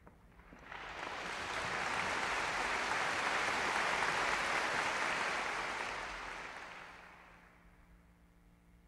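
Audience applauding, swelling up about half a second in and fading away near the end.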